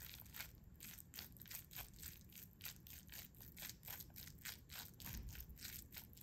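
Metal spoon stirring and mashing bibimbap rice in a bowl: faint, rhythmic scraping and squelching strokes, about three a second.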